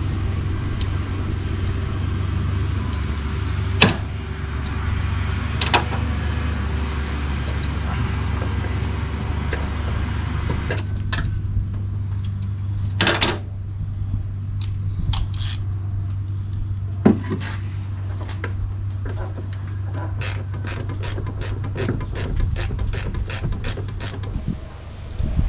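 Hand socket ratchet clicking as bolts are tightened, a few separate clicks at first, then a steady run of about three clicks a second near the end, over a steady low hum.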